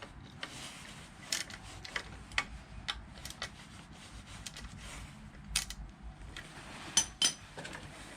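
Irregular sharp metallic clicks and clinks of hand tools working the fasteners on a Harley-Davidson Shovelhead's air cleaner back plate, with a short pause in the middle.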